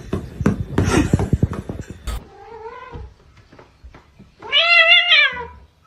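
A rapid clatter of clicks and knocks for about two seconds, then a cat meows twice: first a short falling meow, then a loud, longer yowl that rises and falls.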